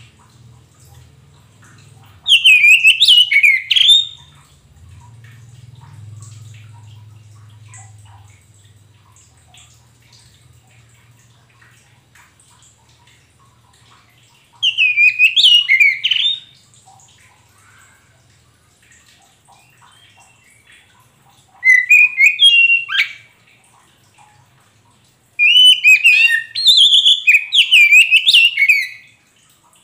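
Oriental magpie-robin of the white-bellied kacer poci form singing in four loud bursts of quick, rapidly rising and falling phrases; the last burst is the longest, about four seconds.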